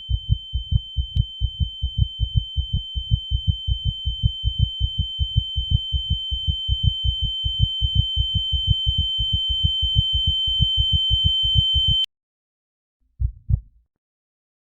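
Heartbeat sound effect: fast, evenly paced low double thumps under a steady high-pitched ear-ringing tone, both growing louder. About twelve seconds in, everything cuts off at once, and one lone heartbeat follows in the silence near the end.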